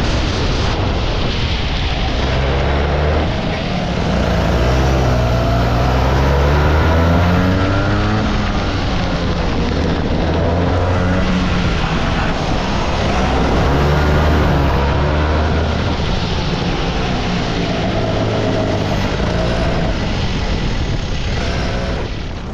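Rotax kart's two-stroke engine heard from the driver's seat, its revs climbing and dropping again and again as it accelerates out of corners and lifts off for the next ones, over a steady hiss.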